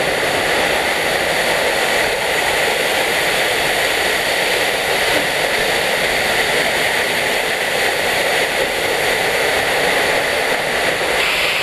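Waterfall pouring down close by: a loud, steady rush of falling water and spray.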